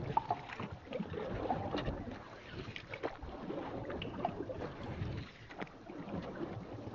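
Water lapping and sloshing, with irregular small clicks and splashes.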